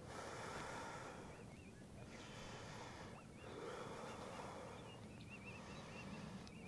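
Faint deep breathing: one breath in or out every second or so, each a soft rush of air with a short pause before the next. A thin high warbling tone runs faintly beneath.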